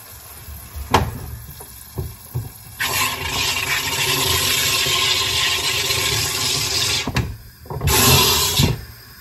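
SodaStream carbonator injecting CO2 into a bottle of Gatorade: a long, loud hissing buzz starting about three seconds in and lasting about four seconds, then a second, shorter burst near the end as the button is pressed again.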